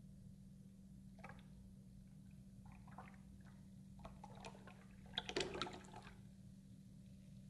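A creamy cocktail being poured from a cocktail shaker into a coupe glass: faint liquid trickling and splashing in scattered spurts, loudest about five seconds in, over a steady low hum.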